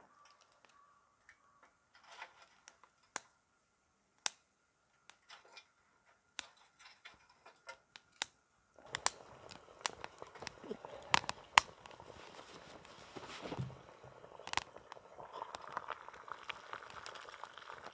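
Small dry twigs snapped by hand, a sharp crack every second or so. About halfway through, a small wood fire in a coffee-can hobo stove starts up with a steady hiss and crackling, and sticks clatter as they are fed in.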